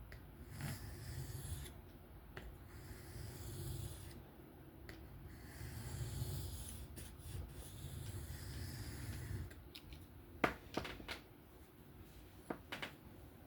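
Steel knife blade drawn by hand across a sharpening stone in slow, repeated scraping strokes, roughly one every one and a half to two seconds. The strokes stop near the end, giving way to a few short sharp clicks.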